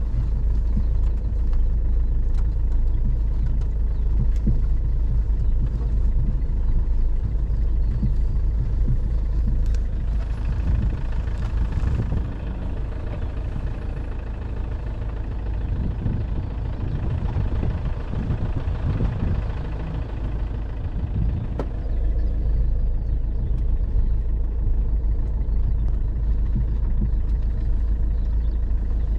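A Land Rover driving off-road over grassland, heard from inside the cabin: a steady low engine and tyre rumble. For about ten seconds in the middle a rushing hiss joins it, as the camera is held out of the open side window.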